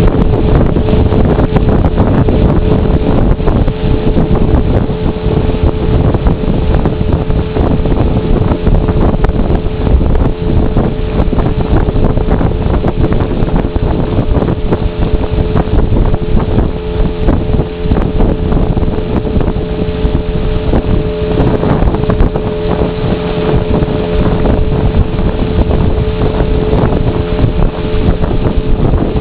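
Motorboat engine running steadily under way, a constant drone with no change in pitch, with wind buffeting the microphone.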